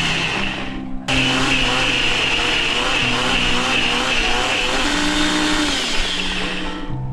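Personal bullet-style blender running with its jar pressed down, grinding thick curry paste. The motor cuts out briefly about a second in, then runs steadily again until it stops near the end.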